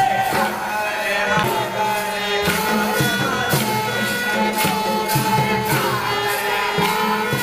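Chhattisgarhi Panthi folk music played live for the dance: singing over percussion with a steady beat.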